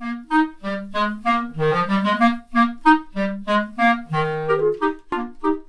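Clarinet playing a lively melody of short, separate notes.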